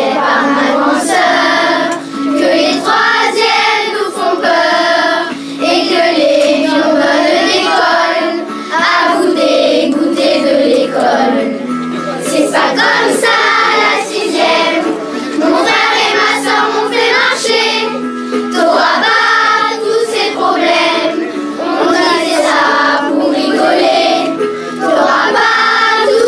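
A group of children singing a song together, over steady held low notes from an instrumental accompaniment.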